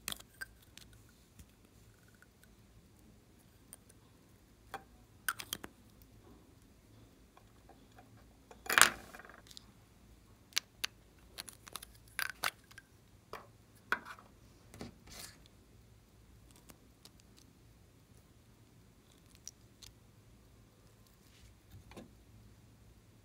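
Small hard-plastic novelty containers being handled and pulled open by hand: scattered clicks and taps, with one louder, longer crackle about nine seconds in.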